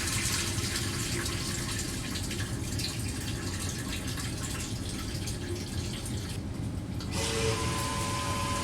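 Water running steadily into a sewage pump basin, filling it so the new float switch rises. About seven seconds in, the sound changes and a steady tone joins.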